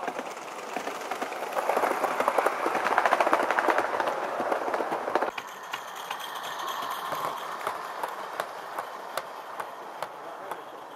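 Model trains running on the layout's track, with a rapid clatter of wheels clicking over the rail joints. It grows louder about two seconds in and drops suddenly to a softer run about five seconds in.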